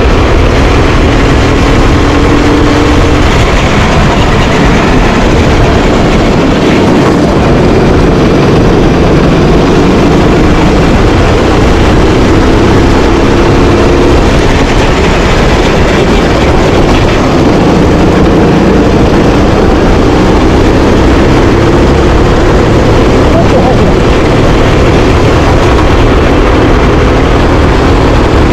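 Rental go-kart engine running hard, its pitch climbing over a few seconds and dropping back several times as the kart accelerates and slows lap after lap.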